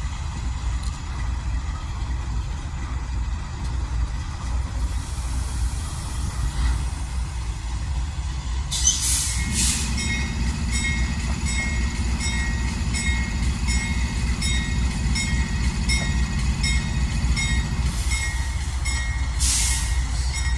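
Train rumbling past, with a diesel locomotive's bell starting to ring about nine seconds in and striking in a steady rhythm to the end.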